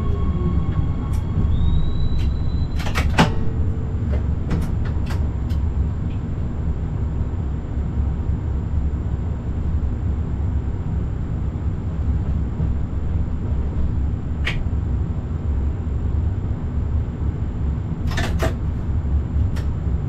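Forchbahn light-rail train running along the line, heard from the driver's cab: a steady low rumble, with a few sharp clicks and knocks, about two seconds apart at the start and again near the end.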